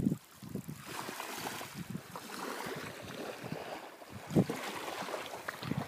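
Wind buffeting the microphone in short low gusts, over a steady hiss of wind and small waves lapping on shallow water.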